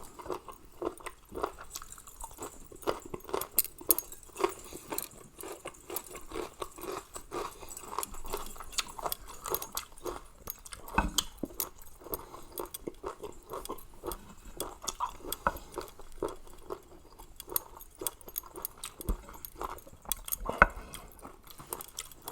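A person chewing and eating a pounded Thai seafood salad of shrimp, squid and salmon, picked up close: many small irregular mouth clicks, with one louder click near the end.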